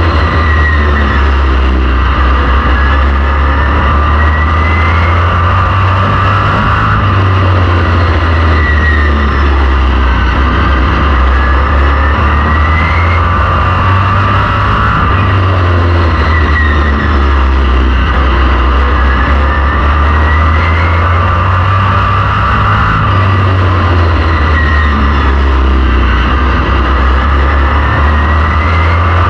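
Vintage modified race car's V8 engine at racing speed on an oval, loud and continuous, its pitch rising and falling back in a repeating cycle about every four seconds, with heavy wind rumble on the onboard microphone.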